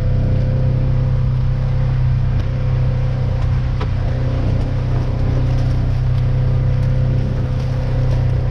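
Off-road buggy engine running steadily as it drives along the trail: an even low drone with a thin steady whine above it.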